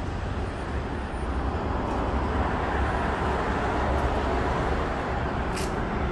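Road traffic noise from the street and elevated highway: a steady low rumble and hiss that swells for a few seconds in the middle, with one short tick near the end.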